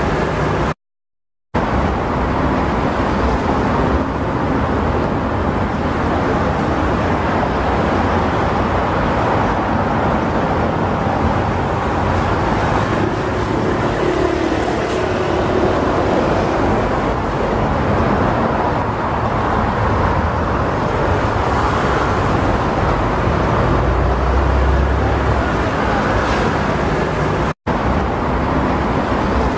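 Steady airport apron ambience: a constant rumble of engines and ground-vehicle traffic. It is broken by a short dead silence about a second in and a very brief dropout near the end.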